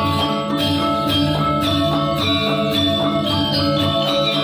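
Balinese gamelan playing: struck metal-keyed mallet instruments ringing in a busy, steady rhythm over a repeating low pulse.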